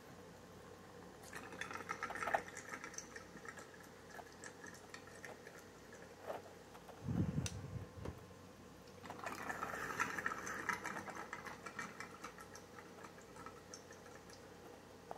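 Water gurgling and trickling through the glass chambers of a Stündenglass gravity bong as it is turned over, in two spells, with a short dull thump in between.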